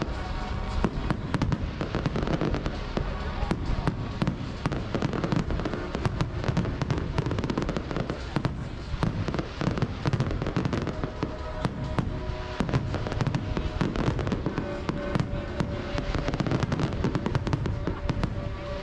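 Fireworks display: a continuous run of bangs and crackling from bursting shells. Long held tones sound underneath at times, mostly in the second half.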